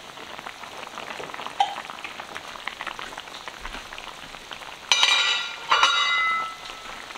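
Tomato sauce bubbling and crackling faintly in an enameled cast-iron pot just taken off the heat. About five and six seconds in come two loud clinks that ring on briefly.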